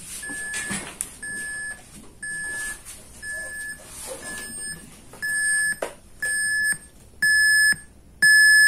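Alarm buzzer of a Ruark Audio R1 Mk4 radio going off: a single-tone electronic beep repeating about once a second. The beeps grow louder about halfway through.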